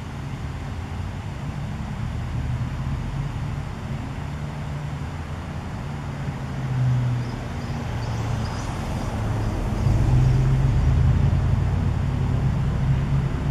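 Steady low background rumble, louder from about ten seconds in, with a few faint high ticks a little past halfway.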